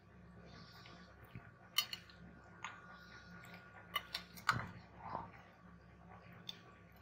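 A spoon mixing raw chicken cubes into a creamy marinade in a glass bowl: faint wet squelching with a handful of sharp clicks of the spoon against the glass.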